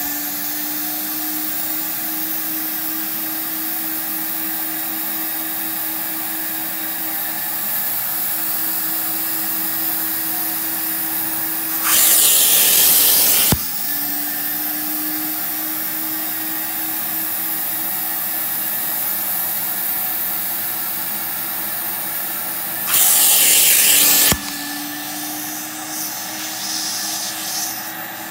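Carpet extractor's vacuum motor running steadily as its clear upholstery hand tool is drawn across fabric couch cushions, a drone with a faint steady hum. Twice a louder hiss lasts about a second and a half.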